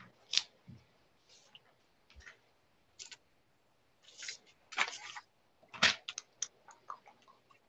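Scattered short clicks and rustles heard over a video call, the loudest about half a second in and again around five to six seconds in.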